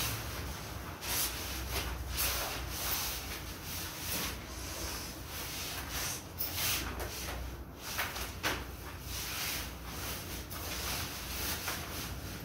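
Mesh fabric of a folding pop-up mosquito net rustling and swishing as it is wrestled and folded by hand, in many short, irregular rubs.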